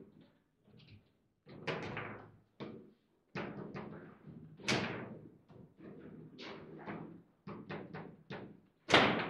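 Foosball table in play: a string of sharp knocks and clacks from the ball being struck and the rods and players' men banging against the table. The two loudest hits come about halfway through and near the end.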